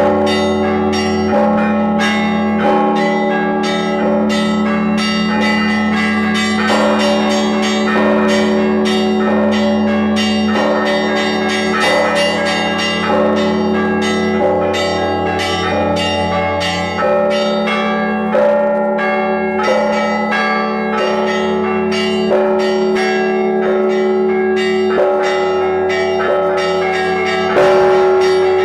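Orthodox church bells of the Uspensky church being rung together: quick, many-times-a-second strikes of smaller bells over the steady hum of larger bells. A heavier stroke sounds near the end.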